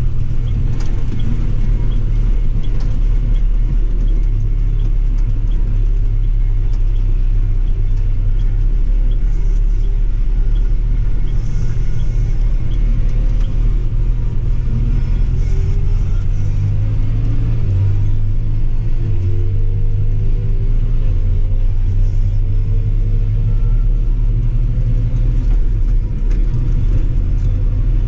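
John Deere 6125R tractor's diesel engine running steadily under a low rumble. A few faint rising whines come through midway.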